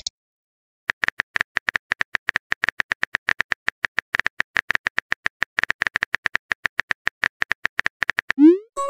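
Quick, uneven keyboard-tap clicks from a texting app's typing sound effect, several a second, starting about a second in. Near the end the clicks stop and a short rising whoosh marks the message being sent.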